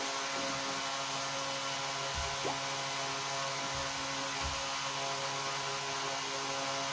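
Steady electrical mains hum with a faint hiss, with a few faint low thuds in the middle.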